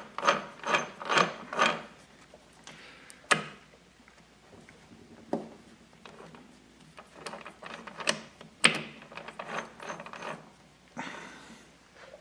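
Rebuilt Maico 440 transmission gears and shafts turned and shifted by hand: a quick run of about five metallic clatters, then scattered sharp clicks and smaller rattles as the gears turn and the shift mechanism moves. This is a test that the newly fitted gears and shift forks are set properly.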